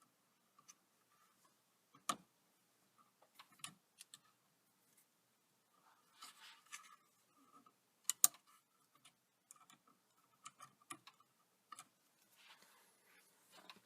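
Small, scattered clicks and taps of turn signal return springs and steering column parts being handled and set into place, with the loudest pair of clicks about eight seconds in.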